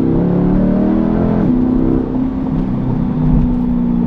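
2020 Chevrolet C8 Corvette's 6.2-litre V8, fitted with an aftermarket exhaust, pulling hard with its pitch rising. Quick upshifts drop the pitch as it starts and again about a second and a half in. It then holds a steady drone.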